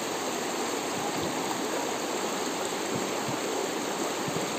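Floodwater rushing steadily across and along a road, a constant even rush of moving water.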